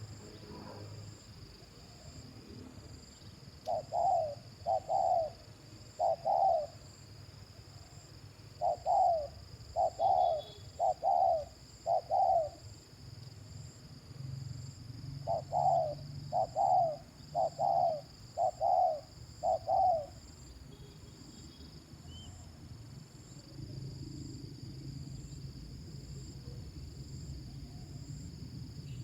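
Captive male spotted dove, a decoy bird, cooing in three bursts of short repeated coos: three notes, then four, then five, each note dipping in pitch.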